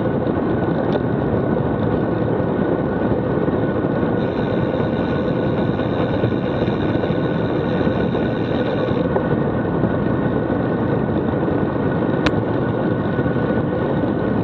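Steady wind rush on a bike-mounted camera's microphone at high descent speed, with a faint steady whistle riding on it and a single sharp click near the end.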